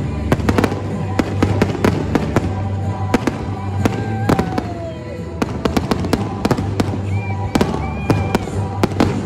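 Aerial fireworks bursting in quick succession: a rapid run of sharp bangs and crackles, many per second, over background music.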